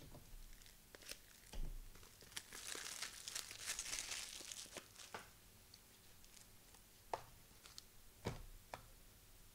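Plastic foil trading-card pack wrapper being torn open and crinkled, with sharp clicks and taps of cards being handled. The crinkling is heaviest in the middle, with separate taps near the end.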